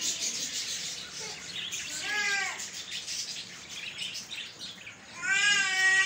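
A cat meowing twice: a short meow about two seconds in, then a longer, louder one near the end. Faint bird chirping runs underneath.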